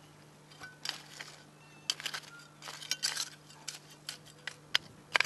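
Metal hand trowel scraping and clinking through stony soil in a string of irregular short scrapes and clicks, as earth is worked back around a transplanted seedling.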